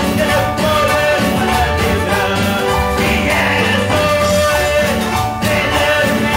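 A man singing a Spanish evangelical praise chorus (coro) into a microphone, over amplified instrumental backing with a steady bass beat.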